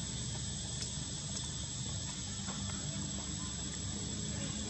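Steady outdoor background: an even, high insect drone over a low rumble, with a couple of faint clicks about a second in.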